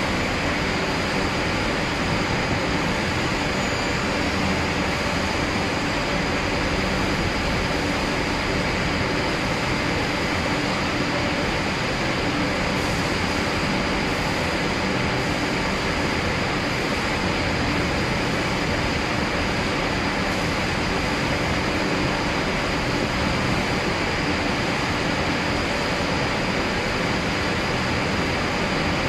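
Steady machinery noise of a sintered-slab production line, with motor-driven roller conveyors carrying large ceramic slabs. It is an even, unbroken noise with a faint low hum underneath.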